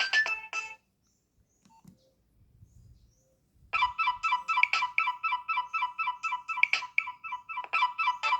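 Nokia 6560 mobile phone ringtones. One electronic melody ends just under a second in and, after a pause of about three seconds, another ringtone begins: a rapid run of short electronic beeps alternating between two close pitches.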